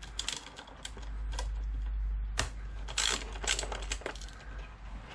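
Irregular metallic clicks and clinks of a hand tool working small 10mm bolts loose from the mudguard mounts on a motorcycle fork leg.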